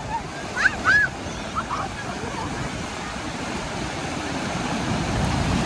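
Sea surf washing in over a shallow beach as a steady rushing noise, which swells louder towards the end. A couple of short high-pitched cries from a child come in the first second or two.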